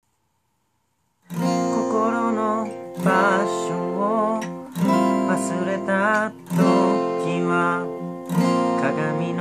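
Acoustic guitar strumming chords, coming in a little over a second in after silence, with a fresh strum and chord about every two seconds.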